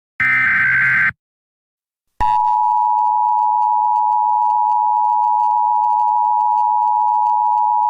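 Emergency Alert System tones: the last of the SAME header data bursts, a one-second electronic warble ending about a second in, then after a second of silence the long, steady EAS attention tone starts and holds.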